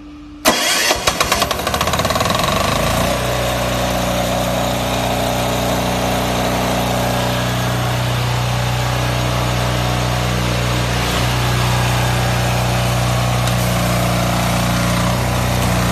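Small diesel engine of a hot water pressure washer started on its key switch about half a second in. It catches with a brief clatter of uneven knocks, then settles within a couple of seconds into steady running at its set throttle.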